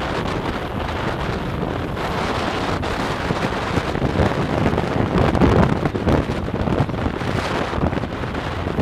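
Wind buffeting the microphone of a camera riding on a moving bike, mixed with road and traffic noise; it gusts a little louder about halfway through.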